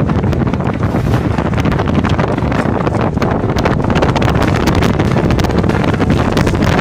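Strong storm wind buffeting the microphone: a loud, steady rushing noise with frequent crackles.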